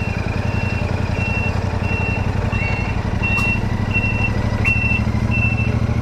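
Royal Enfield Super Meteor 650's 648 cc parallel-twin engine running steadily. Over it, a high beep repeats about three times every two seconds.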